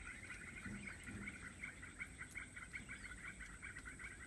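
Wetland ambience: a steady chorus of small animals chirping rapidly, many calls a second, repeating evenly without a break.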